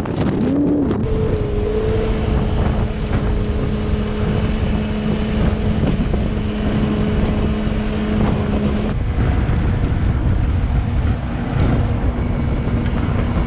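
Skid-steer loader engine revving up and then running steadily at high revs, its pitch changing about nine seconds in, with wind buffeting the microphone.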